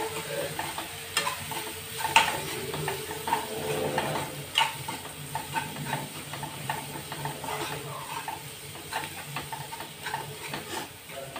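Metal spoon stirring and scraping against a kadai, with irregular taps and scrapes, while onion and spice masala sizzles steadily in hot oil.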